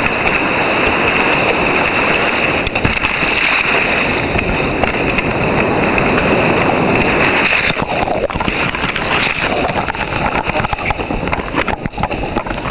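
Surf breaking and white water rushing and splashing around the bow of a sea kayak, heard from a camera on the deck, with wind buffeting the microphone. In the last few seconds the sound turns dull and uneven as water washes over the camera.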